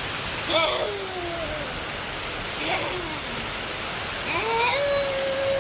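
Steady rain falling. A few short pitched calls sound over it: a falling one about half a second in, another near three seconds, and a longer one near the end that rises and then holds one note.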